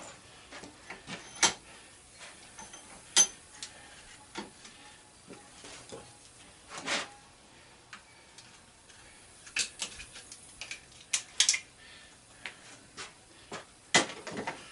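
Scattered light metallic clicks, taps and knocks at irregular intervals as an angle grinder's housing and parts are handled and pried at by hand. There is a small cluster of sharper knocks from about ten to eleven and a half seconds in.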